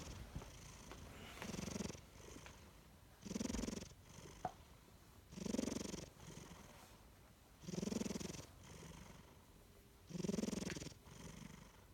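Sleeping domestic cat snoring: a buzzing snore on each breath, roughly every two seconds, with fainter breaths in between.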